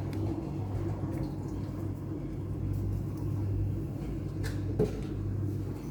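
Bosch Series 4 dishwasher running just after its cycle is started: a steady low hum with water rushing as it begins filling, and a small knock near the end.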